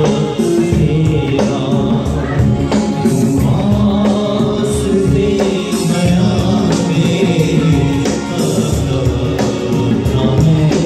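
Live gospel worship song played by a small band: a man sings the lead into a microphone over electronic keyboard and a steady drum beat.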